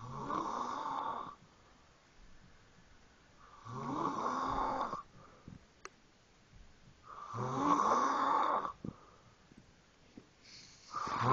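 Snoring: four long snores at a slow, even rhythm, about three and a half seconds apart, the last one starting near the end.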